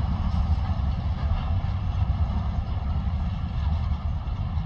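Container wagons of an intermodal freight train rolling past on a climb, a steady low rumble of wheels on the rails.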